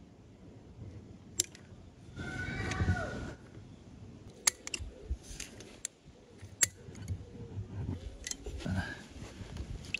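Sealant cartridge gun being worked: a handful of sharp, separate clicks as the trigger is squeezed to run sealant around a roof cable gland, with a brief noisy stretch about two seconds in.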